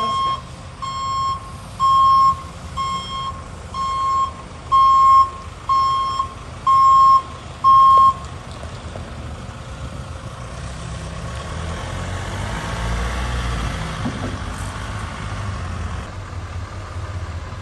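Delivery van's reversing alarm beeping about once a second as the van backs out, stopping about eight seconds in; then the van's engine and tyres swell and fade as it drives away.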